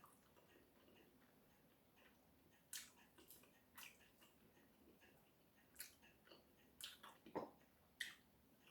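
Faint eating sounds: quiet chewing with a handful of short, soft clicks at irregular intervals.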